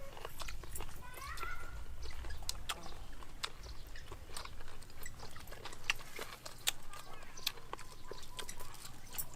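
Chewing and smacking of someone eating steamed cow-head meat, with many sharp little clicks throughout. A brief high-pitched call is heard about a second in.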